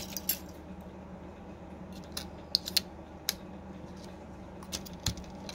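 Small sharp clicks and crinkles of tweezers and a clear plastic protective film being handled and peeled off a phone's screen frame. The clicks are scattered, with a cluster a couple of seconds in and more near the end, over a low steady hum.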